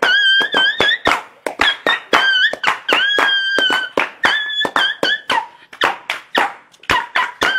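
Music from a rap track: frequent sharp percussive hits under a high, held melody line whose notes bend slightly as each one starts.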